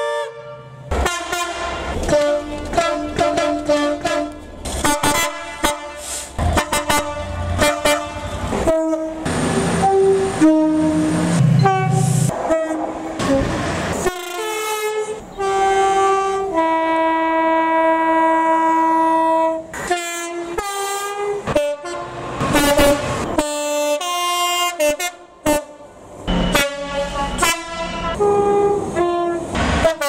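British diesel locomotive two-tone air horns played as tunes: many rapid short toots switching between high and low notes. About two-thirds of the way through, one long held blast of about three seconds is followed by more short toots.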